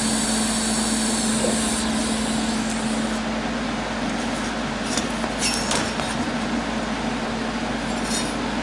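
Steady hum and hiss of a running fan or machine in a welding shop, with a few light clicks of steel parts being handled about halfway through and near the end.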